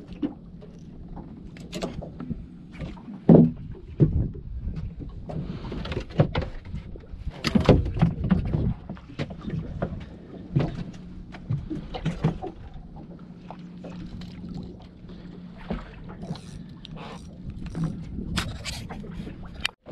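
Irregular knocks and thumps, some sharp and loud, over a faint low steady hum.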